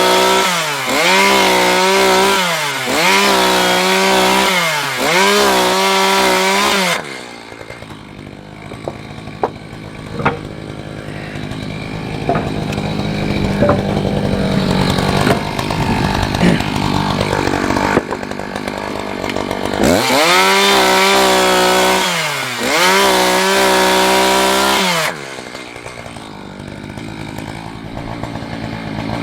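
Two-stroke chainsaw at high revs, its pitch dipping and recovering about every second and a half, typical of short cuts or throttle blips. About seven seconds in it drops to idle for over ten seconds, with a few knocks. It then revs in the same surges again and settles back to idle near the end.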